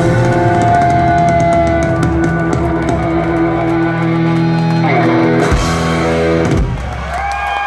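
Live punk rock band's loud distorted electric guitars holding long ringing chords over drums, with a couple of downward slides and the sound thinning out about seven seconds in, as the song closes.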